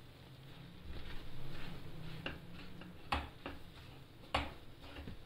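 Wooden spatula stirring flour into jaggery syrup in a stainless steel pan, scraping and knocking against the metal, with a few sharp knocks, the loudest about three and four and a half seconds in.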